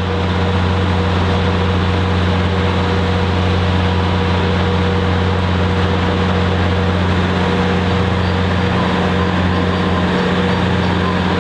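Large diesel engine of a train running at a steady idle, a constant low drone.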